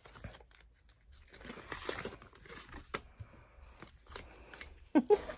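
Paper rustling and crinkling as it is handled up close, with a few light ticks.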